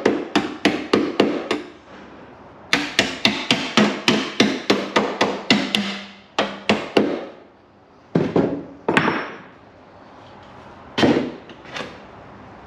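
A hammer striking metal in quick runs of blows, about five a second, with short pauses between the runs and a few single blows near the end.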